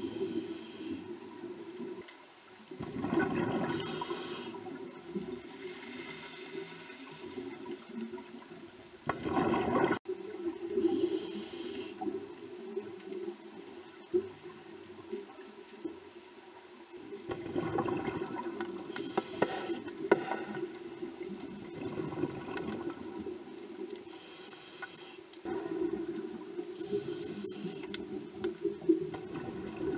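Scuba diver breathing through a regulator underwater: hissing inhalations and bubbling exhalations every few seconds.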